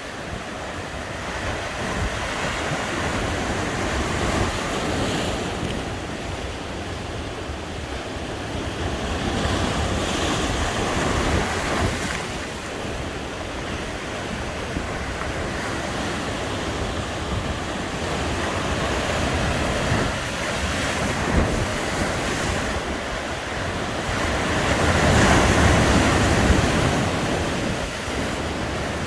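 Sea waves breaking and washing on a beach, swelling and ebbing every few seconds with a louder surge near the end, with wind buffeting the microphone.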